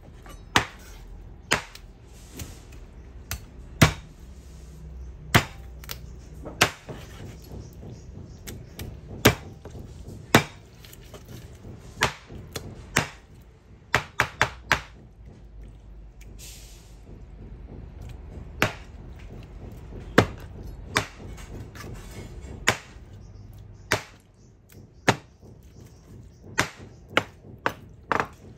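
Chef's knife chopping raw chicken skin on a wooden cutting board: sharp knocks of the blade striking the board at an uneven pace, roughly one a second, with a quick flurry of strokes about halfway through.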